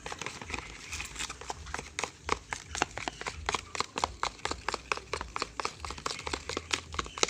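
Glue and liquid soap being stirred quickly in a container for slime, the stirrer clicking and tapping against the container several times a second.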